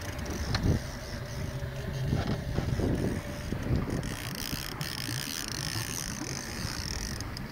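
Boat motor running at trolling speed, with wind buffeting the microphone and the mechanical rattle of a trolling reel on a bent rod.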